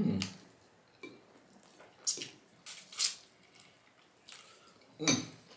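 Close-miked eating sounds: a few short, wet chewing and lip-smacking sounds on sauced chicken wings, spaced out with quiet gaps between them.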